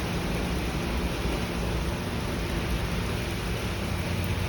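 Heavy thunderstorm rain pouring down in a steady hiss, with a low steady rumble underneath.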